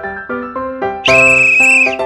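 Background music with a steady pattern of short notes. About halfway in, a loud, shrill whistle-like tone is added and held for about a second before it cuts off.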